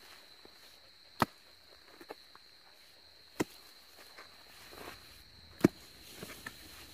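A hoe chopping into packed dirt: three sharp strikes about two seconds apart, the last loudest, with a few smaller knocks between. A steady high insect call runs underneath.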